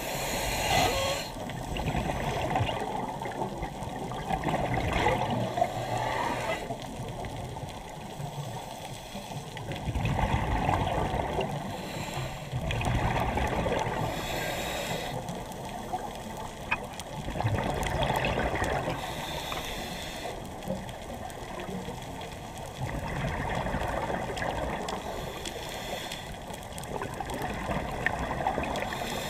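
Scuba diver's regulator breathing, heard underwater: exhaled bubbles gurgling out in swells every few seconds, some with a hiss of inhalation.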